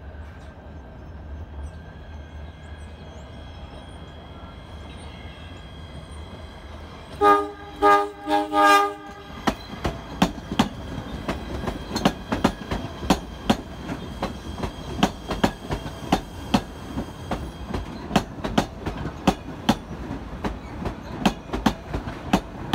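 A train's low rumble, then its horn sounding three short blasts about seven seconds in. The train then passes with its wheels clicking over the rail joints in a steady clickety-clack.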